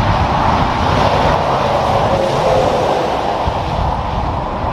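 Tractor-trailer passing at highway speed: a steady rush of tyre and engine noise, with a faint tone that dips slightly in pitch about two seconds in as the truck goes by.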